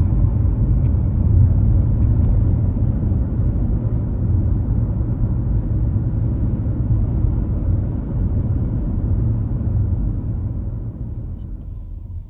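Steady low road rumble of a car driving at highway speed, heard from inside the cabin, fading down near the end.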